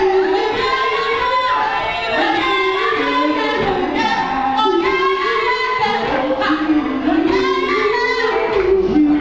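Female vocalists singing a melody over a live band.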